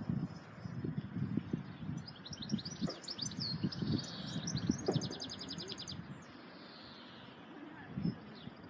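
A songbird singing a quick phrase of high notes that ends in a fast, evenly spaced trill, over a low, uneven rumble of wind noise.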